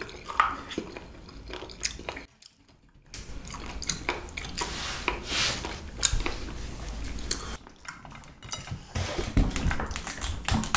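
Eating sounds: chewing and biting food while cutlery and dishes clink in short, irregular clicks. The sound drops out almost completely for about a second, a little after two seconds in.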